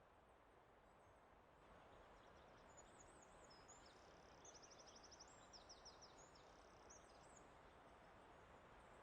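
Faint forest ambience: a soft, steady hiss that grows slightly about a second and a half in, with a small songbird singing a high, quick song of chirps and a rapid trill for several seconds in the middle.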